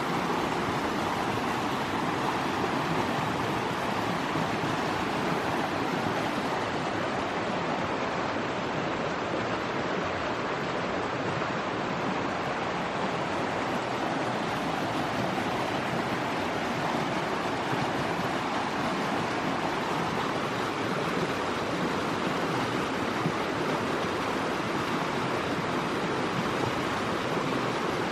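Mountain creek flowing, a steady, even rush of water.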